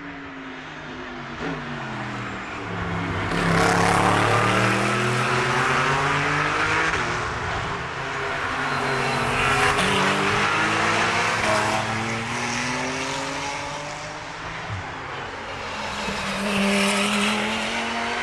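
GT race cars passing one after another at speed. Each engine note swells and then drops in pitch as the car goes by, and the loudest pass comes about four seconds in.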